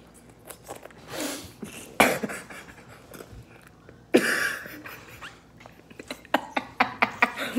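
Mouth sounds of people sucking and chewing on jelly-filled candies, with two sudden short loud puffs of breath about two and four seconds in, and small wet clicks near the end.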